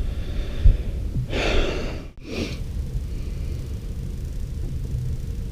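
A man sighs: one breathy exhale a little over a second in, over a steady low rumble, in disappointment at a fish that has just come off the line.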